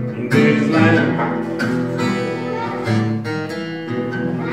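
Acoustic guitar playing a slow blues passage, with notes and chords plucked every second or so and left ringing, between sung lines.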